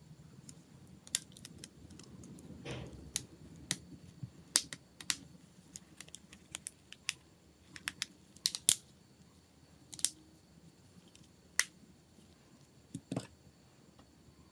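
Small hard parts clicking and tapping at irregular intervals, with a short rubbing scrape about two and a half seconds in.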